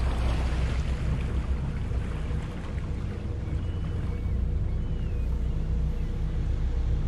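Twin Volvo Penta diesel engines of a Princess 45 motor yacht running at low revs during close-quarters manoeuvring, a steady low rumble.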